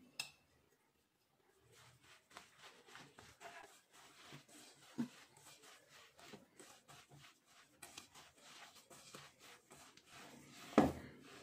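Faint rustling and soft ticks of hands mixing and crumbling a roasted gram flour, ghee and sugar mixture in a stainless steel bowl, starting after about two seconds of near silence. There is a sharper click near the end.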